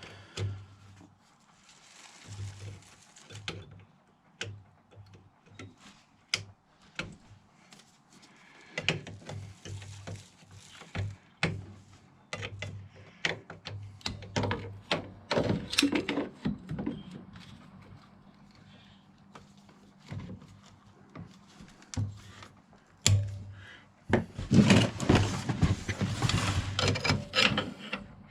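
Hand tools and metal parts being handled on an ATV's front suspension: scattered clicks, knocks and clinks, then a few seconds of dense rattling and scraping near the end.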